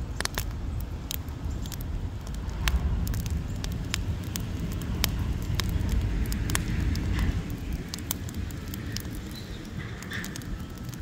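Fire in a fire pit crackling, with sharp, irregular snaps and pops over a steady low rumble.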